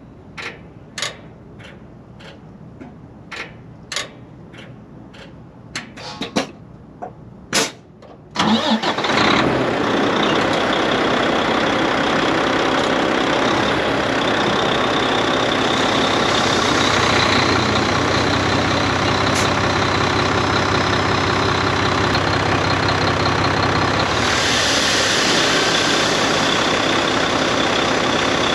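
Several sharp clicks, then about eight seconds in a Volvo D13 diesel engine cranks and starts, running on steadily with a loud windy hiss over the engine note that swells for a couple of seconds near the end. The owner traces this 'heavy breeze' to a seal missing after repairs.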